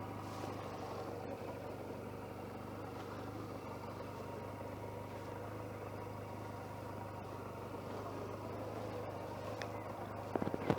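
Motorcycle engine idling steadily, picked up by a lapel mic inside a jacket pocket. A few knocks and clicks come near the end.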